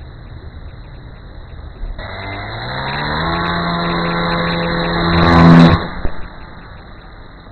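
RC model plane's motor and propeller spinning up about two seconds in, the pitch rising and then holding steady, with a louder rush a little after five seconds before the sound cuts off near six seconds.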